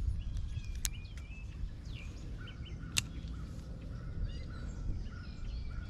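Birds chirping and calling over a low rumble, with a short note repeated many times from about halfway through. Two sharp clicks, about a second in and again about three seconds in.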